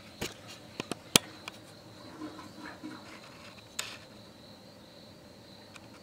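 Handling noise on a glass jar: several sharp clicks and taps in the first second and a half, the loudest about a second in, and one more near four seconds, over a faint steady high whine.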